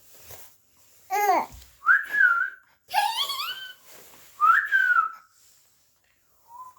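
A baby's high-pitched squeals: four short calls, the first sliding down in pitch, the others rising or holding level.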